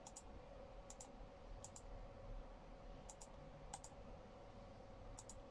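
Computer mouse button clicking, about six quick press-and-release clicks a second or so apart, over a faint steady hum.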